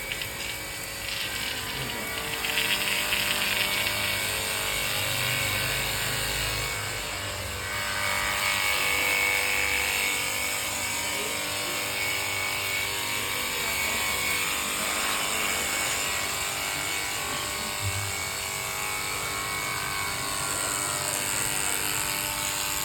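GO MECHANIC 80-bar electric pressure washer running: a steady motor hum under the hiss of the water spray, with the level rising and falling a little as the spray is worked.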